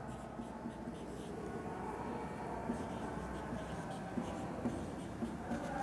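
Marker pen writing on a whiteboard: faint scratching strokes with small taps, steady throughout.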